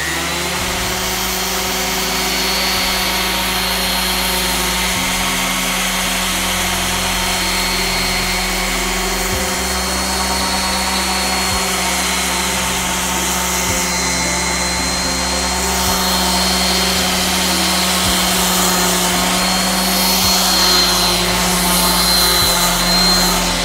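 Electric random orbital sander running steadily against the face of a wooden cutting board, a continuous buzz with a thin high whine over it.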